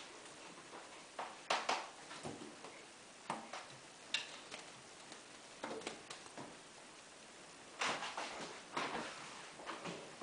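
Irregular light taps, thumps and rustles as a kitten plays with a wand toy on a slatted wooden bench: the toy and string swishing and striking the wood, and paws landing on the slats. There is a cluster of these knocks near the end.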